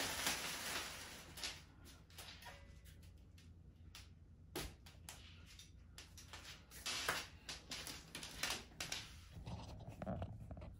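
Faint scattered rustles, clicks and knocks from handling an electric scooter and its plastic packaging, with a sharp click about halfway through.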